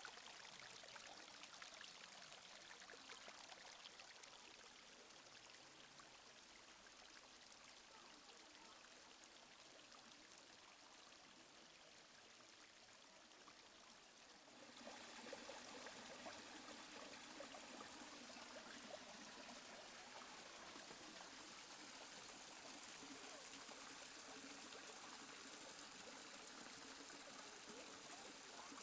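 Faint, steady rush of a mountain stream's flowing water. About halfway through it steps up to a louder, fuller rush.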